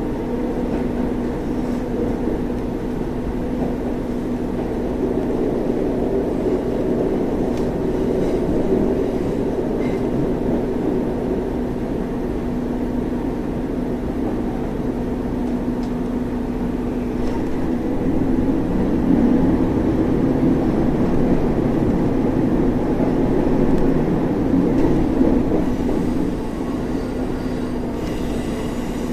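JR Central KiHa 25 diesel railcar heard from inside the cabin: the underfloor diesel engine hums steadily over the rumble of the wheels on the rails. The noise swells for a while about two-thirds of the way through and then eases.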